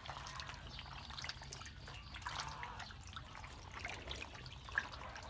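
Faint water trickling and dripping, with scattered small splashes and clicks.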